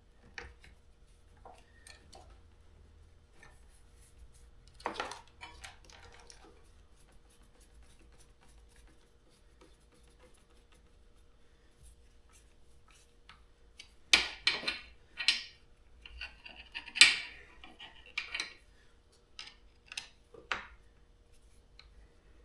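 Scattered metallic clicks, clinks and scrapes of hand tools and nut-and-bolt hardware as cables are fastened to a battery terminal. They are louder and closer together in a cluster past the middle.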